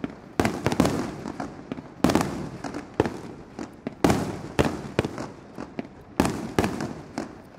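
Fireworks show: aerial firework shells bursting in a rapid series of loud bangs, about a dozen, some close together, each trailing off in an echo.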